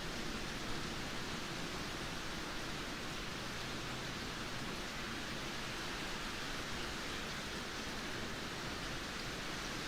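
Steady rainfall, an even hiss without separate drops or breaks.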